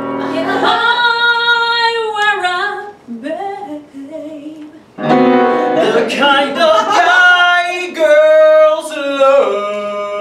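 A woman singing long held notes with vibrato over guitar accompaniment; the singing drops away briefly about three seconds in, then resumes, and a man's voice comes in near the end.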